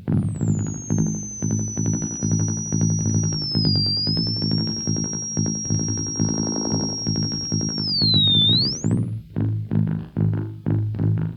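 Guitar played through a circuit-bent Waldman flanger pedal: low notes with a fast rippling warble, under a high electronic whistle that glides down, holds steady, dips twice and sweeps sharply up again near the end.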